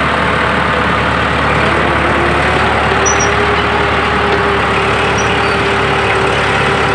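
Bulldozer's diesel engine running at a steady speed, with a steady whine that comes in about a second and a half in.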